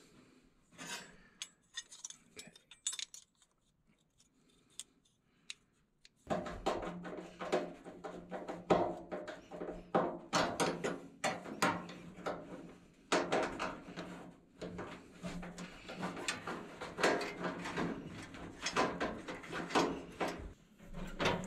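Hands handling a furnace blower motor's capacitor and wiring: scattered clicks and rustling of wires against sheet metal, turning much louder and busier about six seconds in, when a steady low hum also starts.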